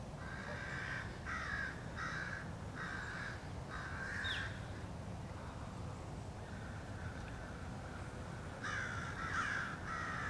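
Crows cawing in repeated calls, mobbing a perched bald eagle: a run of about five caws in the first few seconds, a pause, then another quick run near the end.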